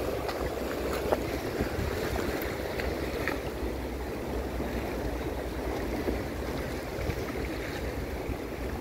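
Steady wash of small sea waves against shoreline rocks, with wind noise on the microphone.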